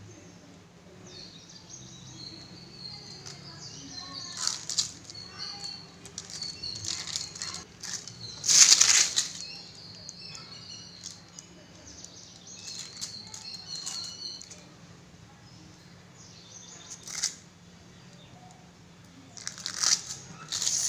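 A butter-paper sheet crinkling and rustling as a knife scores soft cashew dough into diamond pieces on it, in scattered bursts. The loudest burst comes about nine seconds in.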